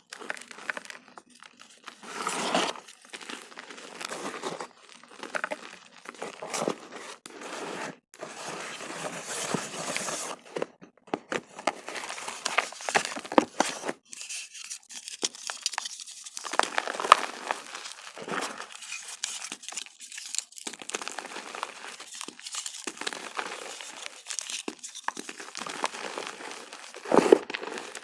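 Blocks of reformed gym chalk being crushed and squeezed by hand, with irregular crisp crunching and crumbling, and a few louder crunches as pieces break.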